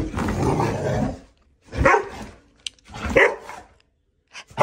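Small hairless dog barking at a printed picture of itself: a drawn-out rough bark in the first second, then two short sharp barks a little over a second apart.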